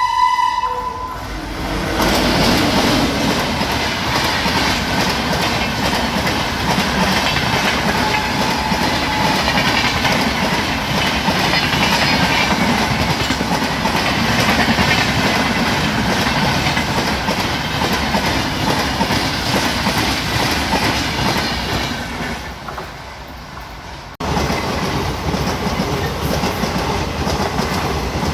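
A train horn sounds briefly at the start, then a train runs past with wheels clattering over the rail joints. About three-quarters of the way through, the sound dips and then cuts suddenly back to loud train running noise.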